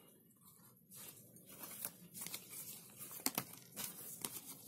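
Veet cold wax strip packaging handled: the paper-backed strips and their wrappers crinkling and rustling in the hands, faint at first, with scattered sharp crackles from about a second in.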